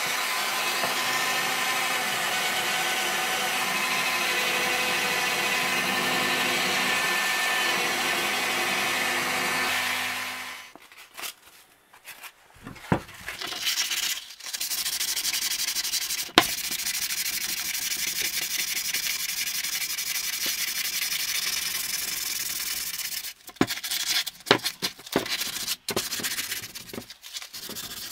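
A handheld rotary tool with a small wheel attachment running steadily against cast iron, then stopping about ten seconds in. After a short gap, 80-grit sandpaper is rubbed by hand over the cast iron in a steady scraping that breaks into shorter, uneven strokes near the end.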